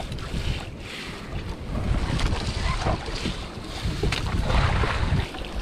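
Wind buffeting the microphone in gusts, over the wash of sea water.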